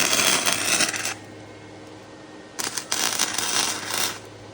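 Electric welding arc crackling in two bursts of about a second and a half each, with a short pause between them as the arc is broken and struck again. A low steady hum runs underneath.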